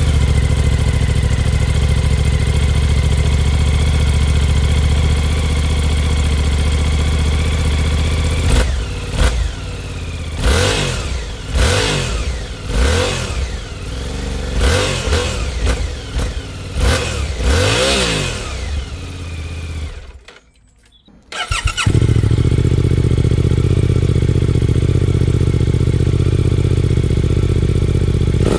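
Suzuki V-Strom 800 DE parallel-twin motorcycle engine idling, then blipped through several quick throttle revs, each rising and falling. After a short break it idles again with a different exhaust tone; the bike is heard on both its stock exhaust and an SC Project Rally Raid titanium exhaust with the dB killer removed.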